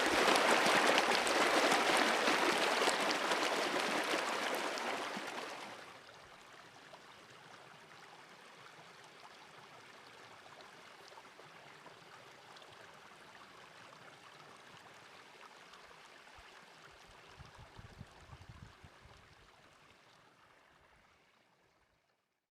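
Stream water flowing, a steady rush that drops abruptly about five seconds in to a faint hiss, with a few low bumps a little later, then fades out to silence near the end.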